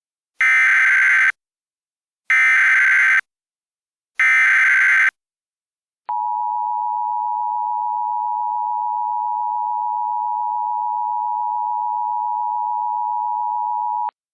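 Emergency Alert System header: three identical bursts of SAME data tones, each just under a second long, followed by the EAS attention signal, a steady two-tone beep near 1 kHz held for about eight seconds that cuts off sharply.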